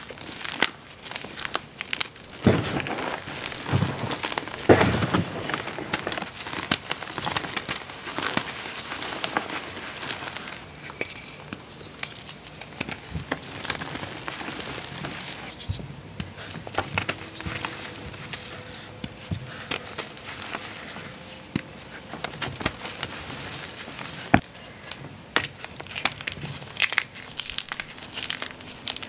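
Hands crushing and squeezing crumbled reformed gym chalk, a dense, irregular crackling crunch of chalk chunks and powder breaking between the fingers, with one sharper snap partway through.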